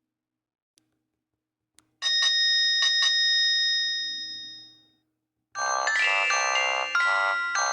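Nokia 8210 4G's built-in ringtones playing through the phone's small speaker. About two seconds in, a short bell-like chime of a few quick notes rings out and fades away. At about five and a half seconds a second, busier ringtone melody starts. Two faint clicks come before the first chime.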